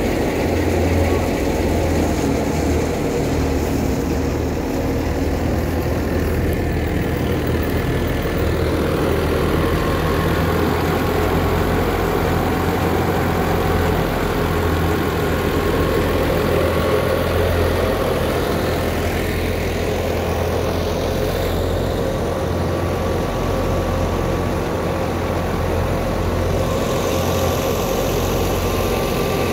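A New Holland Ghazi tractor's diesel engine runs at a steady speed, driving a wheat thresher through its PTO shaft. The engine and the thresher together make a steady, even drone.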